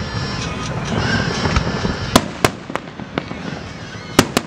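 Aerial fireworks going off: sharp bursting reports, a quick run of them about two to three seconds in and a close pair near the end, over a continuous noisy hiss and crackle.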